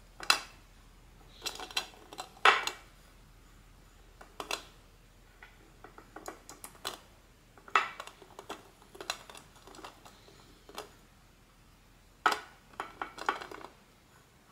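Small plastic toy figures and their plastic packaging being handled while a blind bag is opened: irregular light clicks and short crinkles in scattered clusters, with brief pauses between them.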